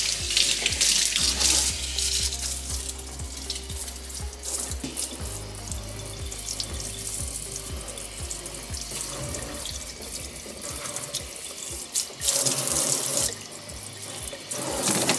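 Kitchen faucet water running from a pull-down sprayer onto a stainless steel sink, rinsing soap off the basin, briefly louder about twelve seconds in.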